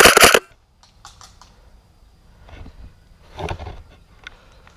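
The end of a full-auto burst from an airsoft M4 electric rifle, a rapid evenly spaced string of shots close to the microphone that stops about half a second in. After it come soft rustling and small clicks of gear being handled, with a louder rustle about three and a half seconds in.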